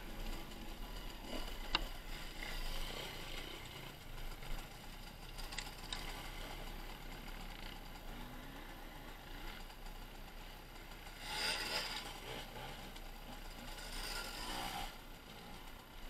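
Dirt bike engines running faintly, with light clicks and rattles and a couple of brief louder surges about eleven and fourteen seconds in.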